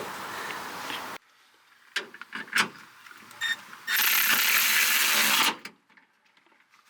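A ratchet wrench clicking and metal parts knocking while the top's bolts are worked. A loud steady hiss lasts about a second and a half in the middle, then it cuts off.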